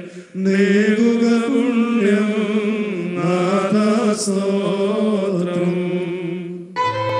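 Male voices chanting a liturgical funeral hymn, a melismatic melody with a brief break just after it begins. About 6.8 seconds in, the chant cuts off abruptly and is replaced by instrumental music with sustained notes.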